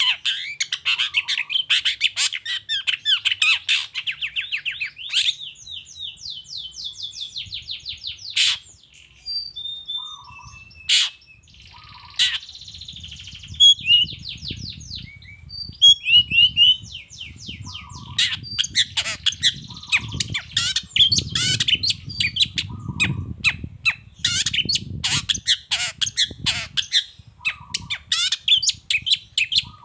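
Long-tailed shrike (cendet) singing: fast runs of sharp, chattering notes and harsh squawks, thinning to scattered notes for a few seconds partway through. A low rumble sits underneath in the second half.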